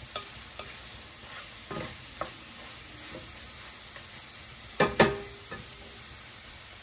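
Clams sizzling in a stainless steel pan while a wooden spatula stirs and scrapes them, knocking against the pan now and then. Two sharp knocks about five seconds in are the loudest.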